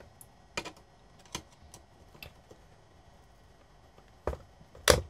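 Scattered light clicks and taps of parts and a small tool being handled inside a valve signal tracer's chassis, with two louder knocks near the end, the second the loudest.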